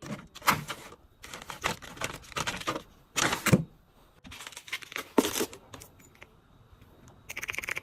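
Small plastic items and packaging being handled by hand: irregular clicks, taps and crinkles, with a louder rustle about three and a half seconds in and a quick run of rattling clicks near the end.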